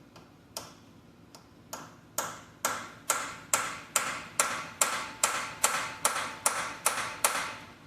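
Hammer striking steel on a broken bolt stuck in an engine block: a few light taps, then a steady run of about a dozen harder blows, a little over two a second, each with a short metallic ring.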